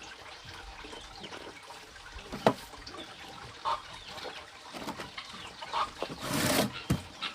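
Chickens clucking now and then, with a sharp knock about a third of the way in and a brief rushing noise near the end.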